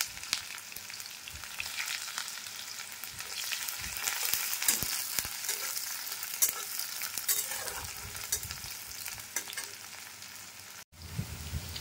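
Sliced onions and panch phoron sizzling in hot oil in a steel kadai, stirred with a metal spatula that clicks and scrapes against the pan. The sound drops out for a moment near the end.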